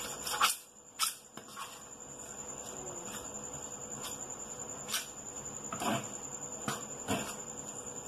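A metal spoon scraping and knocking against a stainless-steel bowl while mixing rice flour just scalded with boiling water into a crumbly dough: about ten short, scattered scrapes and taps. A steady high-pitched whine sounds underneath.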